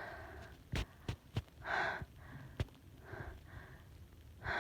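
A woman with a cold sniffling and breathing between sneezes: three short sniffs or breaths about a second and a half apart, with a few small clicks around the first second.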